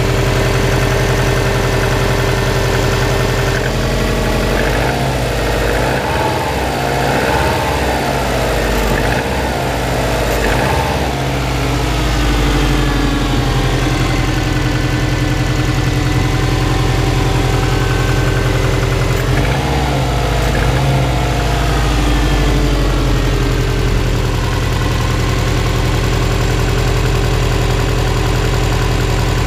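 Subaru Impreza WRX's 2.0-litre turbocharged flat-four engine running cold at idle. Its speed wavers up and down a few seconds in and again past the middle. The owner takes the sound for cold-engine piston slap.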